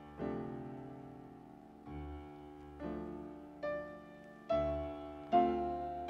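Background music: a slow, soft piano melody, notes struck about once a second and left to fade, some with a low bass note beneath.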